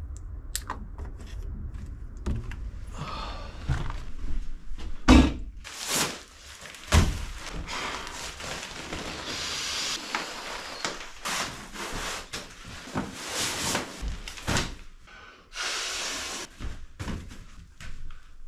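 Camping gear being handled and unpacked on wooden surfaces: scattered knocks and thumps against wood, with stretches of rustling. Two louder thumps come about five and seven seconds in.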